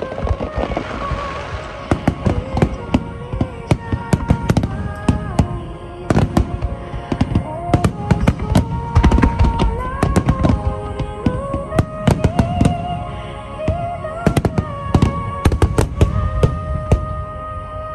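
Aerial fireworks bursting and crackling in dense, irregular volleys, several reports a second, over music with a slow, sustained melody.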